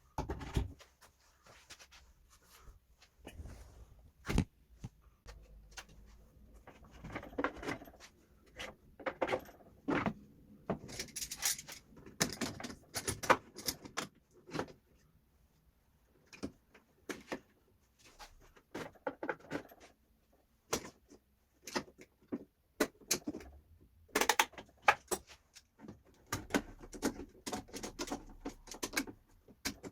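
Irregular knocks, clicks and scrapes of tools, clamps and wood being handled and set down on a workbench, with short pauses between.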